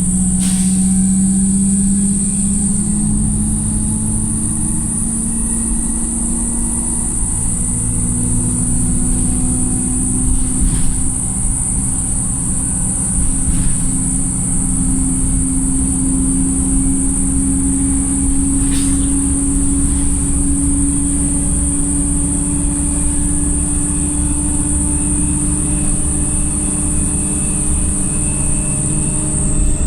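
Onboard a Wright StreetLite single-deck bus: the engine and driveline drone, rising slowly in pitch for about twenty seconds as the bus gathers speed and then holding steady. A constant high-pitched whine runs over it, with a few short rattles.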